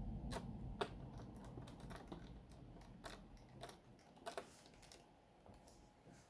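Faint, scattered sharp clicks and taps of a Dell Inspiron M5110 laptop's plastic parts being handled and pressed into place during reassembly, about a dozen of them and thinning out toward the end.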